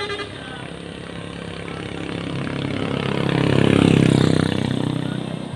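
A motor vehicle's engine passing close by: it grows louder, peaks about four seconds in, then fades away.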